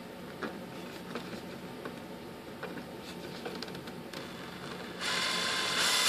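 Faint light clicks as a cordless drill's screwdriver bit is set on a small screw, then about five seconds in the drill's motor starts and runs steadily, driving the screw into the plastic tail mount.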